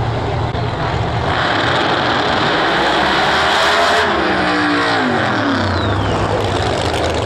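Two no-prep drag cars rumble at the starting line, then launch at full throttle about a second in, and the engine noise swells sharply. From about four seconds in, the engine pitch falls as the cars run away down the track.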